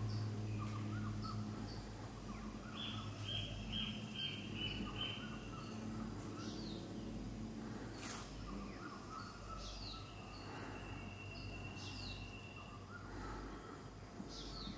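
Background birdsong from several small birds: short chirps and whistles, a quick run of about six even notes a few seconds in, and one long held whistle later. A low steady hum underlies them, strongest at the start, and a single sharp click sounds about eight seconds in.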